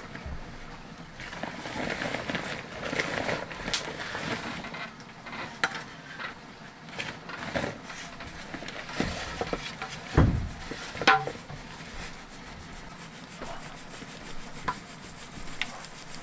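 Rubbing and scraping of cooking work, with scattered light knocks and one heavier thump about ten seconds in.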